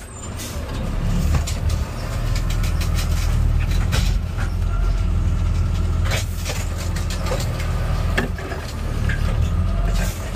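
Garbage truck engine revved to drive the hydraulics of its automated side-loader arm as it lifts a trash cart, dumps it into the hopper and sets it back down. The engine is a steady low drone that rises about a second in, with trash clattering and knocks and bangs scattered throughout.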